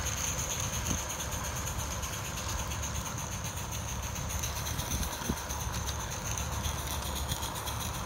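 Accucraft Dolgoch live-steam garden-scale locomotive running with a train of skips, with a steady high hiss and a few small ticks from the wheels on the track. Heavy wind buffets the microphone throughout.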